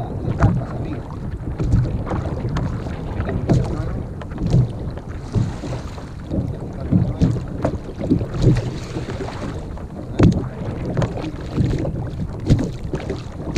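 Wind buffeting the camera's microphone as a low, uneven rumble, with small waves slapping and lapping against a plastic sit-on-top kayak's hull in irregular knocks.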